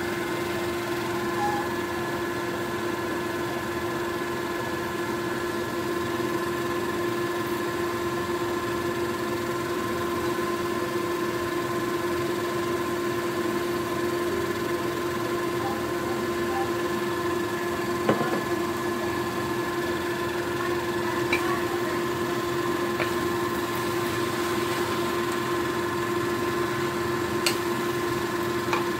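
A steady mechanical hum with a fixed drone, with a few light knocks of a wooden spatula against the frying pan, the clearest about two-thirds of the way through.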